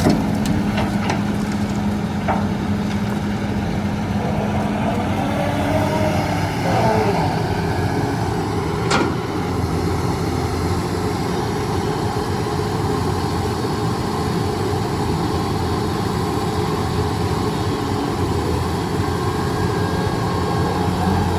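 Heavy machine's diesel engine running steadily, its note shifting briefly about six seconds in. A few knocks come in the first couple of seconds, and a sharp one about nine seconds in.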